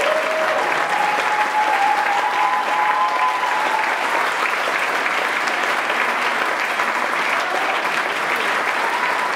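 Large audience applauding steadily with dense hand-clapping.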